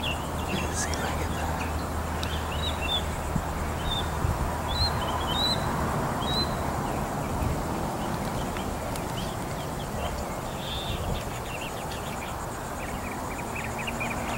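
Wild songbirds chirping in scattered short high calls, over a steady low outdoor rumble.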